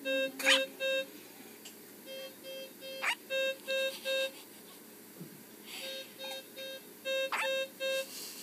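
Three short, sharp hiccups a few seconds apart, over repeating runs of even electronic beeps.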